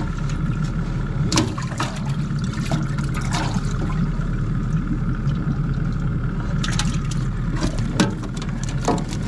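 Water sloshing and splashing in a fishing boat's live well as fish are grabbed by hand, with irregular sharp splashes over a steady mechanical hum.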